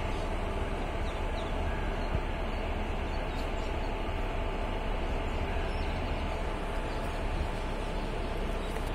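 Indian Railways WAG-5 electric locomotive running in slowly with its train: a steady low rumble with a constant hum over it.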